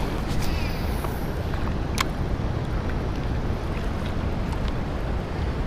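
Steady wind rumble on the microphone over the hiss of running river water, with a single sharp click about two seconds in.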